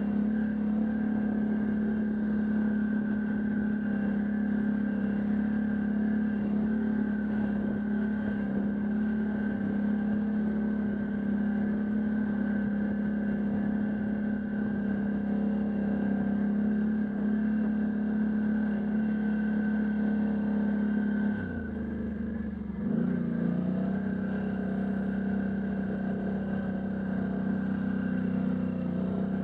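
Can-Am Outlander ATV engine running steadily at trail speed. About twenty seconds in, the engine note drops and goes quieter for a moment as the machine slows, then climbs back up.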